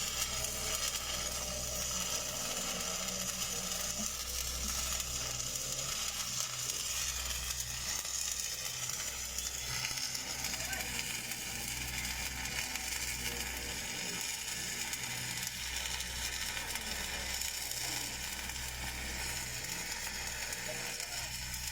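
Stick (SMAW) welding arc crackling and sizzling steadily as an electrode burns along a steel pipe joint, with a low steady hum underneath.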